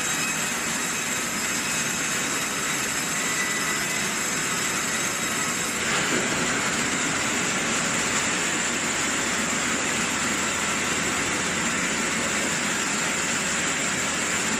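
Automatic sawmill's vertical band saw running: a steady dense mechanical noise with a thin high whine, growing a little fuller about six seconds in.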